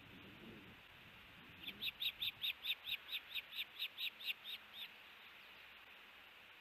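Osprey calling: a rapid run of about fourteen sharp, high chirps, some four a second, starting about two seconds in and lasting about three seconds.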